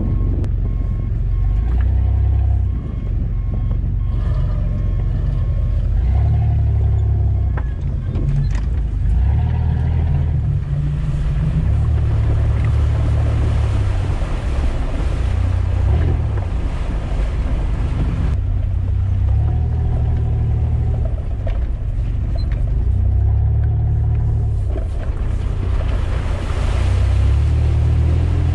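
Off-road 4x4's engine heard from inside the cab, a low drone whose revs rise and ease off every few seconds as it wades through a shallow river, with water rushing and splashing against the vehicle.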